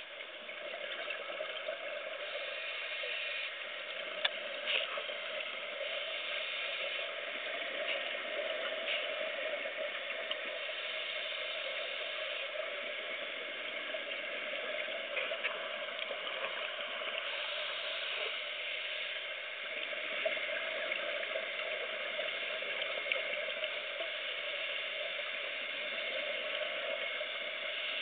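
Underwater sound heard through a camera's waterproof housing: a steady muffled wash of water with the gurgle of a scuba diver's exhaled bubbles, swelling every few seconds. A few short clicks, the sharpest about four seconds in.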